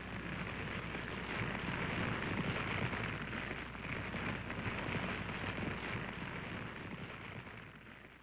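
Dry brush burning in a small spot fire, with a steady crackling that fades out near the end. A low steady hum runs underneath.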